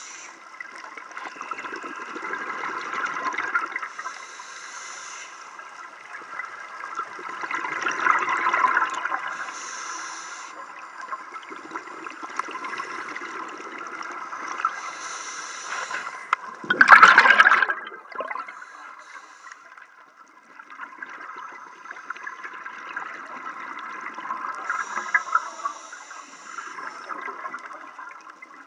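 Scuba regulator breathing heard underwater, in a cycle every five or six seconds: a high hiss on each inhale, then a gush of exhaled bubbles. The loudest bubble burst comes a little past halfway.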